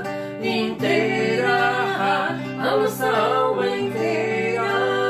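Slow song with acoustic guitar accompaniment and a singing voice, the melody moving in the first few seconds, then settling on a held chord.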